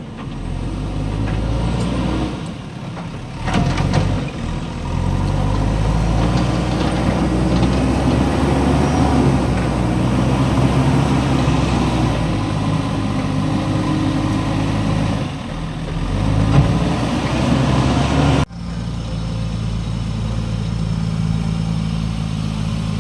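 Backhoe loader's diesel engine running and revving up and down as it works, with a short knock about sixteen seconds in. Near the end the sound cuts abruptly to a steadier, quieter engine note.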